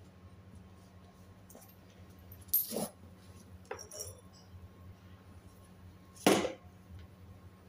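Metal tools or parts clinking and clattering, with two louder clatters about two and a half and six seconds in and a few fainter clinks between.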